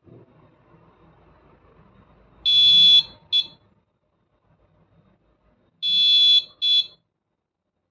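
Arduino Morse code buzzer beeping a high steady tone as Morse is keyed in: a long beep then a short one, and the same pair again about three seconds later. Faint handling noise comes before the first beep.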